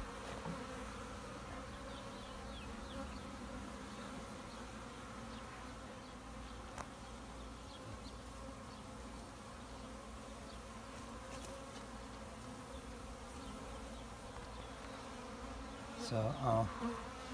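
Honeybees from a newly installed package swarming around an open top bar hive, a steady buzzing hum. A voice comes in briefly near the end.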